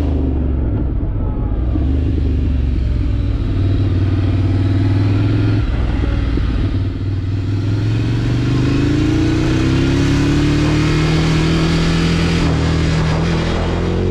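Ducati Scrambler Desert Sled's air-cooled L-twin running under way, its note steady at first, easing off briefly about halfway, then climbing steadily through the second half as the bike accelerates.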